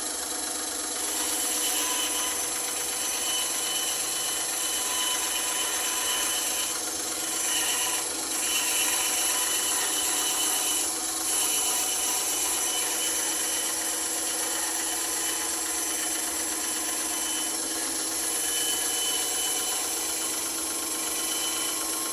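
Bandsaw running steadily, its blade cutting through wood, with the level swelling a little a few times around the middle.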